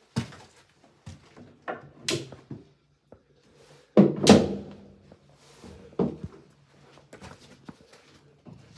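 A few sharp knocks and thumps as someone moves about inside a fibreglass boat's cabin and cockpit, the loudest pair about four seconds in with a brief low hum after it.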